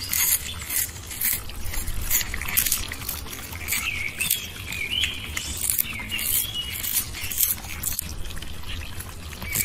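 A cat crunching dried small fish, with rapid, repeated crisp crunches. A few faint high squeaky sounds come through the chewing midway.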